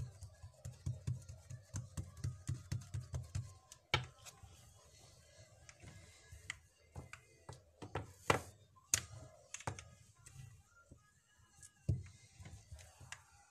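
Hands patting and slapping a ball of bread dough flat: a quick run of soft thuds, about four a second, for the first three and a half seconds. After that come scattered sharp taps and knocks as the dough round is handled and rolled out with a plastic-pipe rolling pin on a plastic-covered table.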